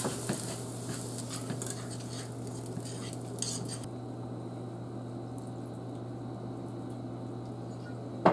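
A metal spoon scraping and clinking in a stainless steel skillet as sautéing onions and herbs are stirred. The clinks stop about four seconds in, leaving a low steady hum.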